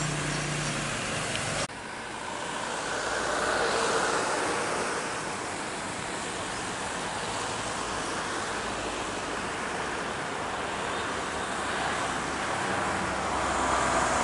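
Jet airliner engines running with a steady rushing roar. After an abrupt cut about a second and a half in, the roar swells for a couple of seconds and then holds level.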